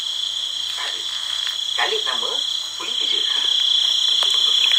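A steady night chorus of frogs croaking, with a few short, low voices in between.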